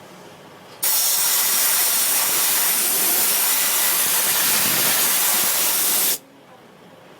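A loud, steady spraying hiss that starts abruptly about a second in and stops just as suddenly about five seconds later.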